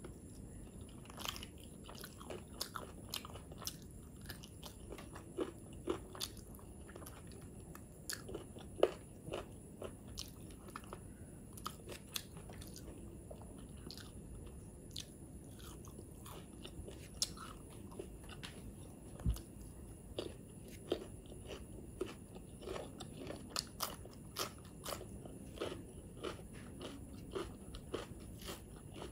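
Close-miked eating: a person chewing and smacking with her mouth while eating rice and chicken gravy by hand, heard as many soft, irregular clicks and smacks over a faint hiss.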